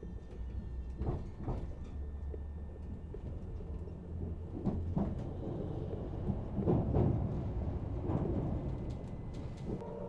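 Passenger train in motion heard from inside the carriage: a steady low rumble of wheels on the rails, with irregular knocks and clunks from the car body and track. Just before the end a steady hum of several tones sets in.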